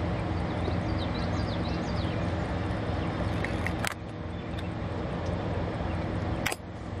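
Steady low machine hum with a background noise haze, with faint bird chirps in the first couple of seconds and two sharp clicks, about four and six and a half seconds in.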